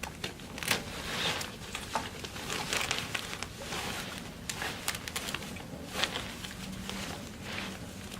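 Bassinet parts being handled as a frame tube is worked into the top channel of a plastic leg hub: irregular rustling and knocking, with several sharp clicks.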